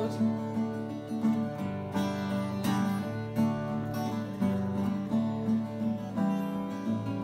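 Acoustic guitar strummed in a steady rhythm of chords, with no voice: the instrumental close of a song.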